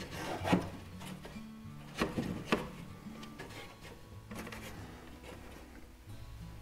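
Wooden stringer strips knocking and rubbing against the plywood frames of a model boat hull as they are set back into their notches: a few sharp wooden knocks, the loudest about half a second in and twice around two seconds in, with some scraping between. Background music plays underneath.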